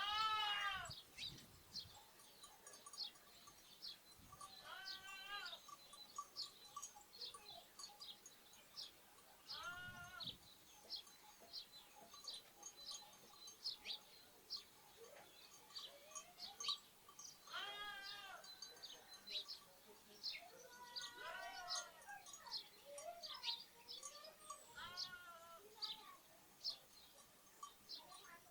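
Lambs bleating, about six separate calls with a wavering pitch, the first the loudest. House sparrows and other small birds keep up quick high chirping throughout.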